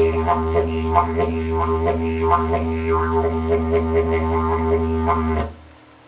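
Handmade wooden didgeridoo playing a steady low drone, its tone shaped into a rhythmic pattern of accents about three times a second. The drone stops near the end.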